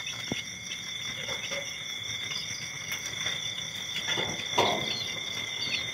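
Young chicks in a brooder peeping faintly and shuffling in the bedding, with a rustle about four seconds in, over a steady high-pitched drone.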